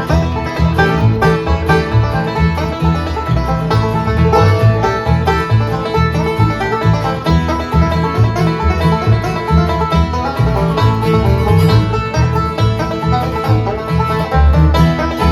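Live bluegrass band playing an uptempo instrumental passage, a banjo picking busily over strummed guitar and a steady, walking bass line.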